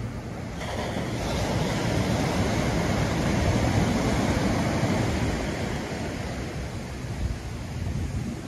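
Sea waves breaking on a sandy beach and washing up the shore in a rush of foam, swelling about a second in, loudest in the middle, then easing as the water runs back.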